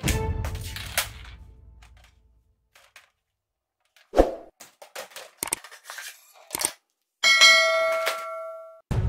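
Hard plastic toy guns clacking and knocking in a short run of sharp clicks as they are handled and set down. Then a bell-like ding sound effect rings for about a second and a half and cuts off. A last note of background music dies away at the start.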